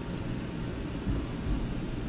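Steady low rumble with a faint hiss of spray, typical of an automatic car wash machine working over a car heard from inside.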